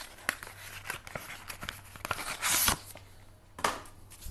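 Brown paper wrapping rustling and crinkling as it is pulled off a small box by hand, with a louder burst of paper noise a little past halfway and a shorter one near the end.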